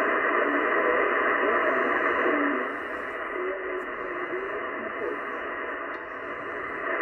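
Shortwave receiver's speaker playing the RAF Volmet aviation weather broadcast on 5450 kHz in upper sideband: a weak voice through steady static, clipped at the top like telephone audio. The whole signal drops in level about two and a half seconds in.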